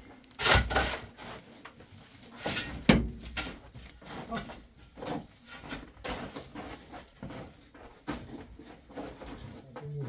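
A long-handled shovel digging into stony earth: the blade scrapes and knocks against dirt and rocks. Two heavier strikes come about two and a half seconds apart, followed by lighter irregular scrapes and knocks.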